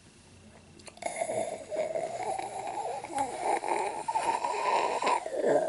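A raspy, drawn-out growling groan in a human voice, wavering in pitch, starting about a second in and breaking off near the end before a second groan begins.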